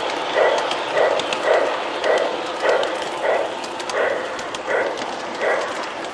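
Electronic sound unit of a G-gauge garden-railway locomotive playing steam chuffs, about two a second and slowing slightly, over a steady hiss with faint clicks from the track.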